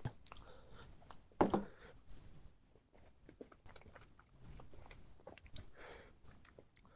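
A person chewing and biting food close to the microphone: a run of small crunches and wet mouth clicks, with one louder bite about a second and a half in.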